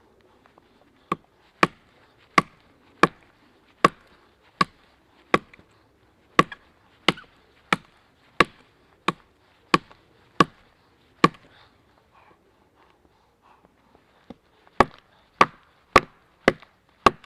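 An axe chopping into wood: sharp, evenly paced strikes about one and a half a second, a run of about fifteen, a pause of about three seconds, then five more.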